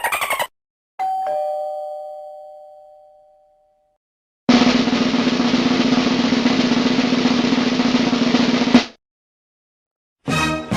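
A two-tone doorbell chime, ding-dong, rings about a second in and fades away over a couple of seconds. Then a snare drum roll of about four seconds ends on a final hit.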